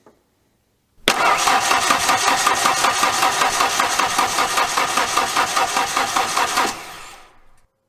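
1991 Ford Ranger 2.3L four-cylinder engine cranking on the starter motor in an even rhythm for about six seconds without catching, as it has no spark. It winds down when the starter is released near the end.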